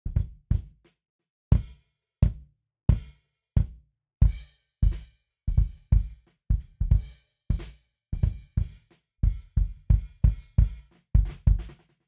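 A recorded drum kit playing back a groove: kick drum strokes, many struck together with snare and cymbals, at about two hits a second. It starts suddenly and stops suddenly.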